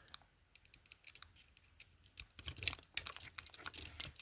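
Handcuffs and their key being handled: small metallic clicks and rattles, sparse at first and coming thick and fast from about halfway.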